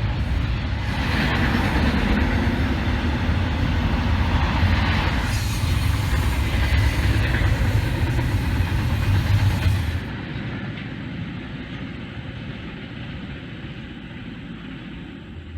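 A train passing, a loud rumble with rolling noise. About ten seconds in it drops suddenly to a quieter rumble that fades away.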